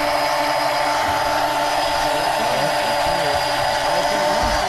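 Electric deep-drop fishing reel winding line in under power, a steady motor whine.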